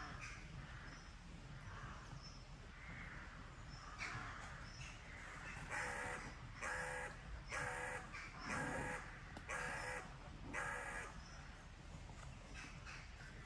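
A crow cawing six times in an even series, about a second apart.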